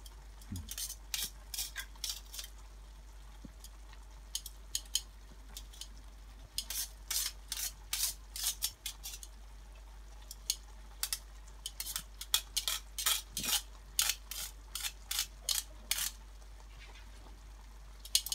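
Metal kitchen tongs clicking and scraping against a stainless-steel colander and a frying pan while cooked spaghetti is lifted across and mixed into tomato sauce. The sound comes in irregular clusters of short clatters with quieter gaps between them.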